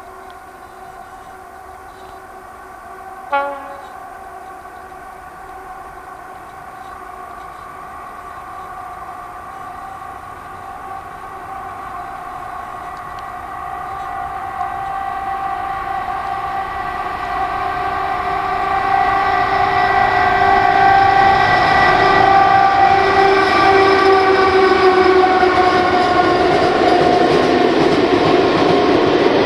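Freight train hauled by a ČD Cargo class 122 electric locomotive approaching through a curve: a steady whine of several tones grows louder as it nears, joined by rising rumble and rush from the hopper wagons rolling close by near the end. A brief, loud, pitched blip sounds about three seconds in.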